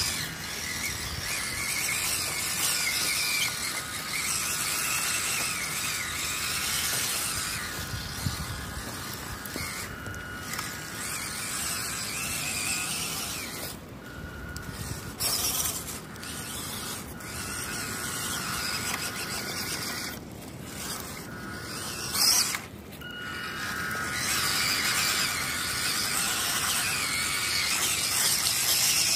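WPL C14 1:16 RC truck's electric motor and gearbox whining as it drives over wet leaves and mud, the pitch wavering with the throttle. The whine drops out briefly a few times in the middle stretch.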